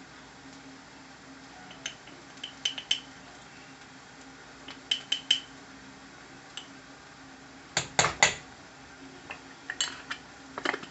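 Spoon and kitchen utensils clinking against containers and the pan as turmeric powder is added, in short clusters of a few clinks. The loudest clatter comes about eight seconds in.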